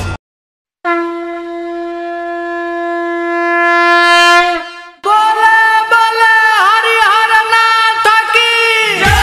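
Wind-instrument opening to a devotional song. After a brief silence, one long steady note swells and fades. About five seconds in, a second, slightly higher held note comes in with several quick dips in pitch.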